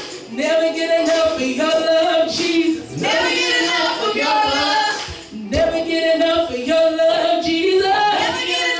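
A woman singing a worship song into a microphone, holding long notes in three phrases with short breaks between them.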